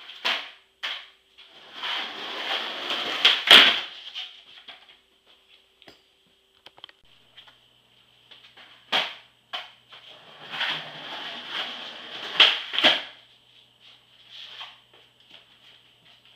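Skateboard wheels rolling across the floor in two runs of a couple of seconds, each ending in loud sharp clacks of the board hitting the floor, with a few more single clacks of the board between them.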